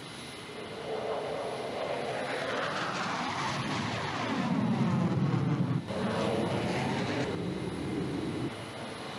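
Jet fighter flying past, its engine noise swelling to its loudest about four to six seconds in with a sweeping change in tone, then easing off near the end.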